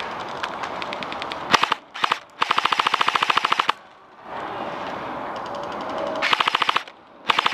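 Airsoft guns firing in rapid full-auto bursts of about fifteen shots a second: a short burst, a long burst of over a second, then two more short bursts, with a steady hiss of background noise between them.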